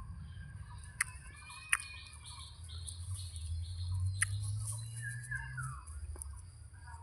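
Small birds chirping in a run of short, high, repeated notes, with a falling call about five seconds in. A few sharp clicks and a steady low hum run underneath.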